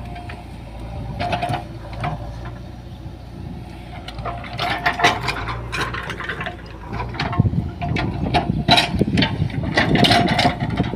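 JCB 3DX backhoe loader's diesel engine running steadily while it digs, with a run of sharp knocks and clanks starting about four seconds in and growing louder toward the end.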